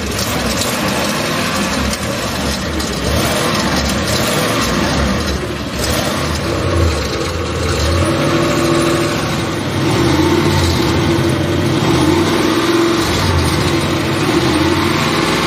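Old Cadillac Fleetwood engine running as it warms up after a cold start, revved a little higher about two-thirds of the way in. The engine has a knock and doesn't sound too good.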